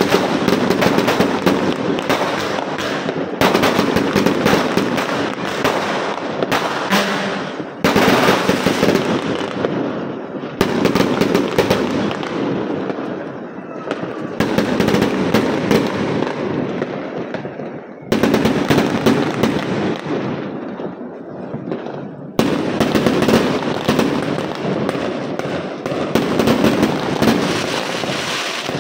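Aerial fireworks bursting in quick succession with dense crackling. Fresh loud volleys break out every few seconds and each one dies away.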